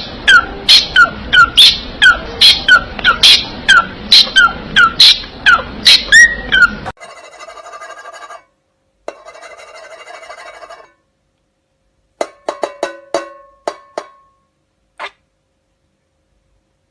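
A parrot calling over and over, short sharp calls about twice a second, for the first seven seconds; after that, quieter sounds with steady tones and a few sharp plucked notes.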